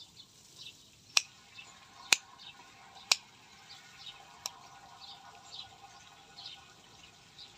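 Scissors snipping leaves off a bougainvillea cutting: four sharp snips roughly a second apart in the first half, over faint, repeated high chirping.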